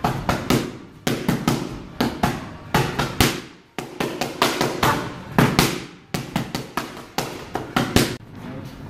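Boxing gloves smacking into focus pads in fast combinations: sharp cracks in quick runs of two to four, with short pauses between, a longer one a little before halfway.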